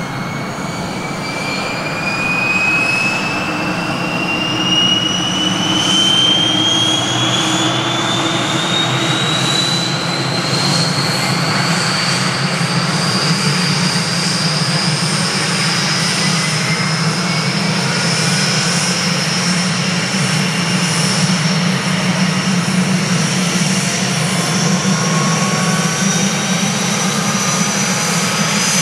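Military helicopter running close by, its turbine whine climbing steadily in pitch over the first half and then holding, over a steady engine and rotor rumble. Further whines join in near the end.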